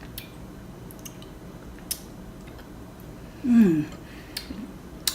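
Mouth sounds of chewing sticky honeycomb wax: scattered wet clicks and smacks, with a short falling 'mm' voiced about three and a half seconds in.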